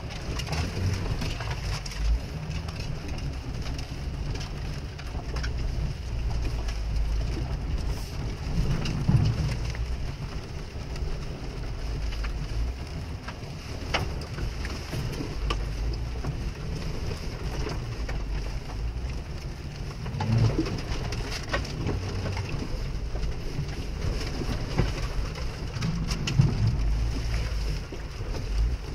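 Jeep engine rumbling low, heard from inside the cabin as it crawls through mud, swelling a few times under load. A steady hiss of rain on the body and windshield runs over it.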